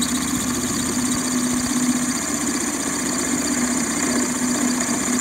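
Warco metal lathe running steadily with a 6.8 mm twist drill turning in its chuck, cross-drilling a hole through a part. A steady hum with a high whine over it.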